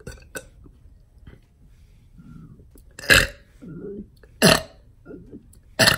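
A man burping over and over on purpose: a string of short burps of varying loudness, some low and drawn out, the loudest about three, four and a half and six seconds in.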